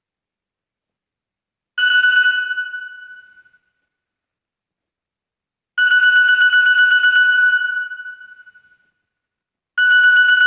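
A Nokia 2630 ringtone played through a Samsung Galaxy S4's speaker: one high electronic tone with a fast flutter, sounding three times about four seconds apart. Each time it starts sharply and fades away.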